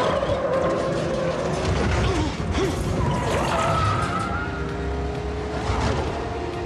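Car-chase soundtrack: car engines revving and tyres squealing as cars skid and drift.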